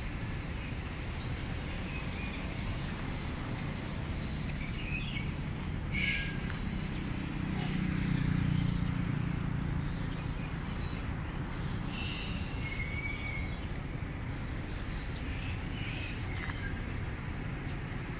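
Outdoor street ambience: a steady low traffic rumble that swells as a vehicle passes about halfway through, with a few short bird chirps over it.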